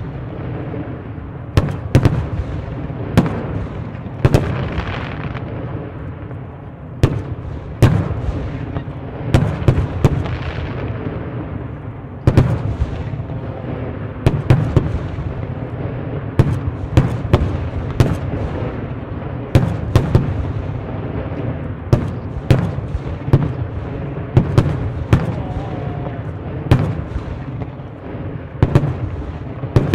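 Fireworks barrage (starmine): shells bursting in quick succession, sharp bangs about once or twice a second over a continuous rumble and crackle.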